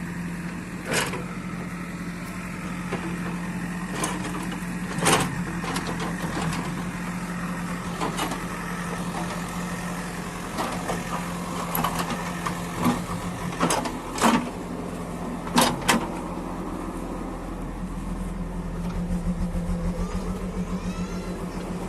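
A motor vehicle engine running steadily at idle, with a string of sharp knocks and clanks of materials being set down. Near the end the engine note swells into an even throb.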